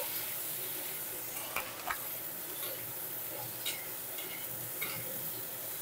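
Pointed gourd pieces sizzling steadily in hot oil in a kadai while being stirred with a spatula, which scrapes the pan a few times in short strokes.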